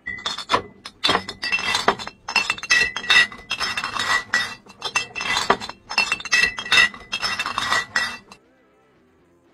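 Rapid, irregular clinking and jingling, like small hard pieces being shaken together, which stops abruptly about eight seconds in.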